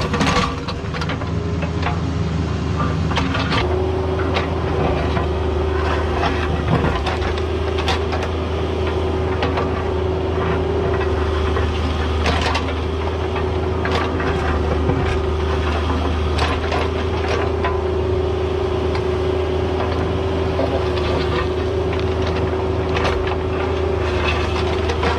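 Caterpillar 304 mini excavator working: its diesel engine running steadily under load, with a steady whine setting in a few seconds in and repeated sharp knocks and scrapes.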